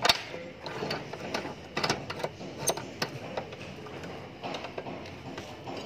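Irregular metal clicks and knocks from the clamping vise of an abrasive cut-off saw being adjusted and tightened around a homemade pistol.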